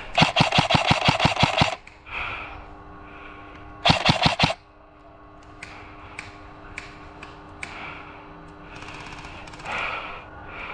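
Krytac airsoft electric rifle firing a rapid string of shots, then a shorter burst about four seconds in.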